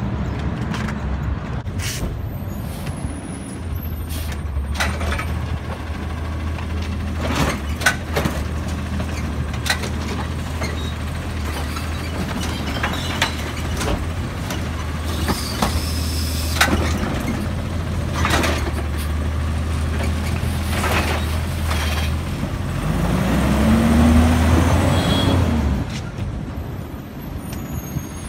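Automated side-loader garbage truck working its route: its engine runs steadily under a series of sharp knocks and clanks from the lift arm and carts, with a hiss of air brakes about halfway through. Near the end the engine revs up for about three seconds, then drops back.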